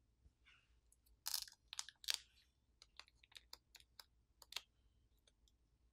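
Faint crinkling and clicking of thin peeled-back tape and film being pressed and handled by fingers inside an opened smartphone's frame. A few crinkly rustles come about a second in, then a quick run of small clicks.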